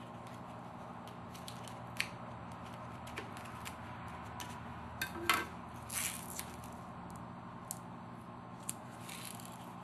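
Strips of tape and small wood pieces being handled at a workbench: scattered light clicks and a few short rustling tears, the loudest a bit after five seconds and around six seconds in, over a steady low hum.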